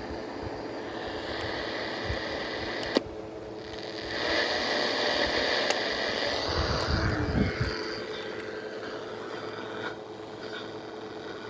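Static hiss from a White Westinghouse clock radio's speaker as it is tuned without finding a weather station. A click about three seconds in is followed by a short drop in the hiss, which then comes back louder for a few seconds.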